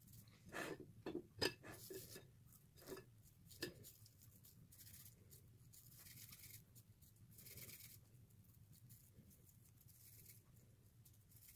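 Faint handling sounds of hands shaping potato cakes from a crumb-and-buttercream mixture. A few soft clicks and knocks come in the first few seconds, then soft rustles as the mixture is rolled into logs and laid in cocoa-and-sugar powder, over a low steady hum.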